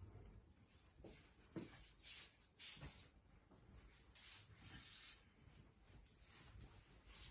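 Near silence in a small room, with a dozen or so faint, short scratching strokes scattered through it.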